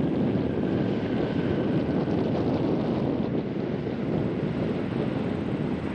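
Jet airliner's engines rumbling steadily as it rolls along the runway, with a faint high whine drifting slightly down in pitch; wind buffets the microphone.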